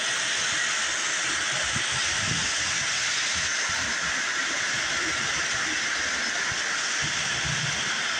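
Toy electric trains running on tubular metal track: a steady whirring hiss of wheels and motors, with faint low rumbles.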